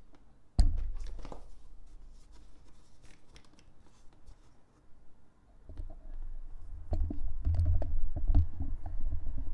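Close handling noise from hands on the gear near the microphone: a sharp knock about half a second in, then scattered clicks and scrapes, and a run of low bumps and clicks over the last few seconds.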